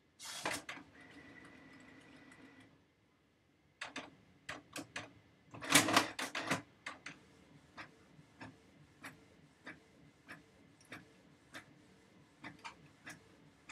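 Inkjet printer running a print job: a click and a short whir with a faint whine, a brief pause, then a cluster of clacks and regular ticking about twice a second as the mechanism works.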